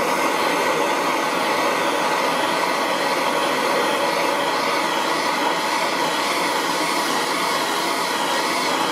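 MAPP gas torch burning steadily, its flame giving a constant rushing hiss as it heats an aluminium block.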